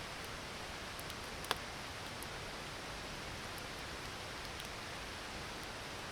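Steady rushing of a creek with a campfire crackling over it: one sharp pop about a second and a half in, and a few faint ticks.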